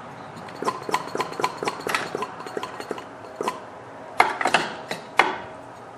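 Light metallic clicking and clatter, about three or four clicks a second, then a few louder knocks near the end, from hands working with metal test gear and saw parts.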